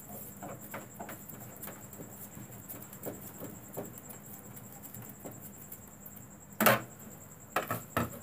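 Hands working on a CRT TV's plastic back cover: small irregular clicks and scrapes, then a loud sharp knock about two-thirds of the way in and two smaller knocks near the end.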